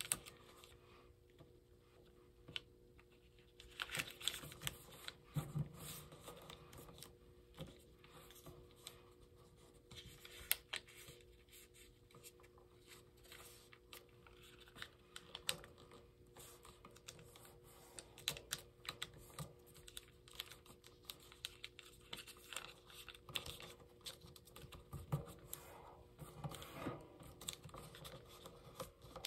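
Origami paper crackling and rustling in irregular small clicks as hands fold it open along its creases and press the folds flat.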